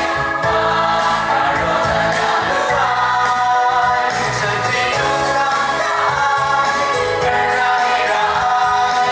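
A group of voices singing a Christian song in the Kachin (Jinghpaw) language, with instrumental backing and a steady beat.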